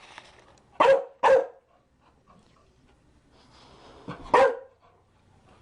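Chow Chow barking: two quick barks in a row about a second in, then a single bark near the end.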